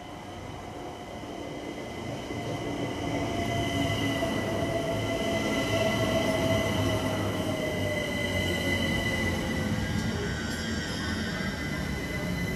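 London Overground Class 378 electric train running into the platform and slowing, growing louder over the first few seconds. A motor whine falls in pitch as it slows, over a high steady squeal.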